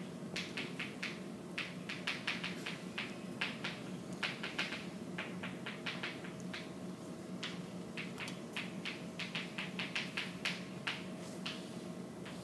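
Chalk writing on a chalkboard: a rapid, irregular run of short taps and scratches as words are written out, over a steady low room hum.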